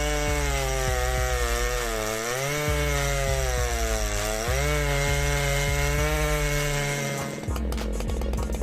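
Stihl MS881 chainsaw, a big 121.6 cc two-stroke, cutting through wood at high revs; its pitch sags and recovers several times as the chain loads up in the cut. About seven and a half seconds in, the engine drops to a lower, rougher running.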